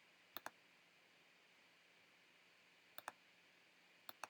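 Faint computer mouse button clicks: three quick press-and-release pairs, about a second in, then about three seconds in and again near the end.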